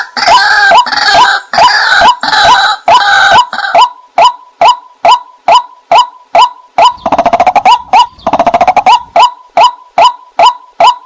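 White-breasted waterhen calls played as a hunting lure: a steady run of short repeated notes about three a second. For the first few seconds a fuller, denser calling is layered over them, and a fast stuttering chatter comes in about halfway through.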